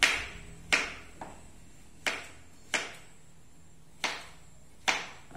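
Kitchen knife chopping pumpkin on a wooden cutting board: sharp knocks of the blade into the board, mostly in pairs, about six strokes in all.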